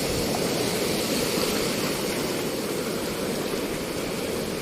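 Sea water rushing and washing over a rocky shore, a steady surf noise without a break.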